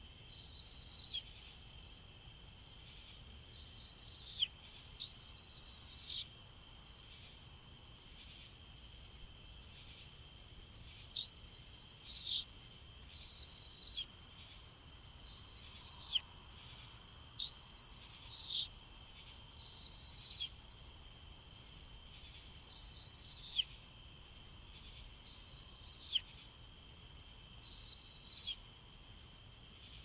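Steady high-pitched insect drone, with a short shrill call repeated about a dozen times at uneven intervals of one to three seconds, each call ending in a quick downward slide.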